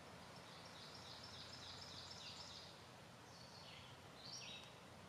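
Faint songbird chirping over quiet woodland background hiss: a quick run of high notes in the first half, then two short falling calls later on.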